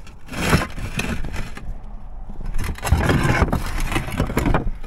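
Roof tiles scraping and knocking against each other and the valley flashing as a tile is worked loose and lifted out. There is a short scrape about half a second in and a longer rough stretch of scraping in the second half.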